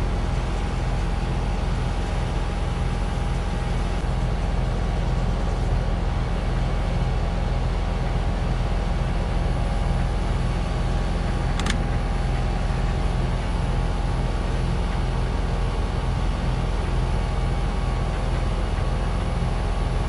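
American Standard heat pump outdoor unit running: a steady compressor hum with the rush of the condenser fan. A single brief click about halfway through.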